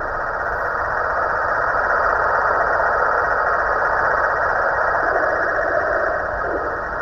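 Snoring from a Halloween pumpkin: a steady, rasping breath noise, with a deeper snore coming in about five seconds in and falling away near the end.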